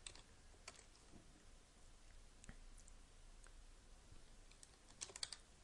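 Computer keyboard keystrokes: a few faint, widely spaced key clicks, then a quick run of several keystrokes about five seconds in.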